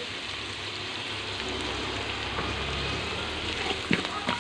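Diced carrot, onion, garlic, bell pepper and pork sizzling steadily in hot oil in a pan, with a wooden spatula scraping and clicking against the pan a few times near the end as the vegetables are stirred.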